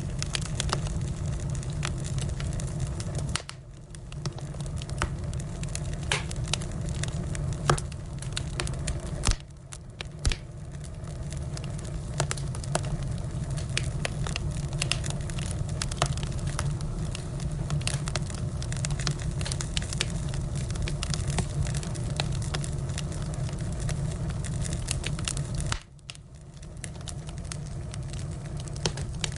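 Firewood burning, crackling with scattered sharp pops over a steady low rumble; the sound drops away briefly three times.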